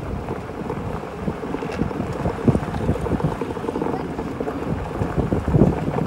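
Wind buffeting the microphone: an uneven low rumble with irregular gusts.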